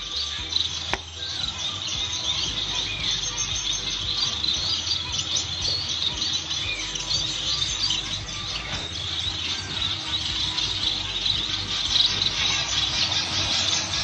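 Many caged finches chirping and calling at once, a dense, unbroken chatter of short high calls over a steady low hum.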